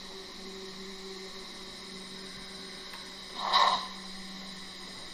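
Steam locomotive sound from the ESU LokSound 5L decoder's loudspeaker in a Gauge 1 brass model of a Bavarian D XII, as the model crawls at its lowest speed step. A steady low hum runs throughout, and a single short steam chuff comes about three and a half seconds in.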